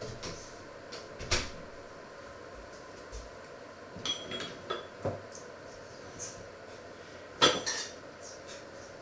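Kitchenware clinking and clattering: a clink about a second in, a short run of clinks with a brief metallic ring around the middle, and the loudest clatter near the end, over a steady faint hum.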